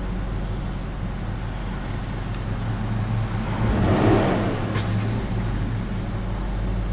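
A 1995 BMW 525i's 2.5-litre straight-six idling, its RPMs jumping up and down a little, with a brief swell of louder noise about four seconds in. The uneven idle comes from a vacuum leak through a cracked air intake hose to the airflow meter.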